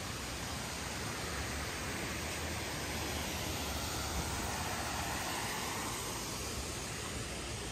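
Steady rushing of a mountain stream, the Kibune River, swelling slightly in the middle.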